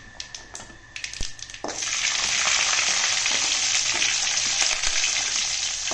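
Mustard seeds and urad dal crackling with dried red chillies in hot sesame oil in a kadai, with scattered pops. About two seconds in, shallots and garlic drop into the oil and a loud, steady sizzle starts.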